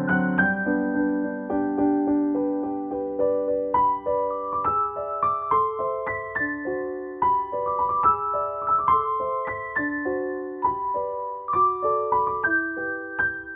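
Background solo piano music: a slow, gentle melody of single notes over held lower notes.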